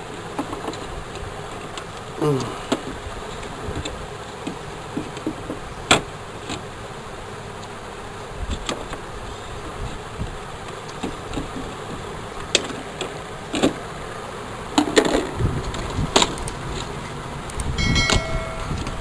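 Scattered clicks and knocks of hard plastic as the battery-compartment cover of a digital weighing scale comes off and the battery pack is moved about inside it, over a steady background buzz. A short electronic chime sounds near the end.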